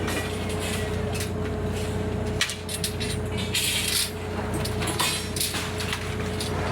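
A machine's engine running steadily, with irregular metallic knocks and clatter over it.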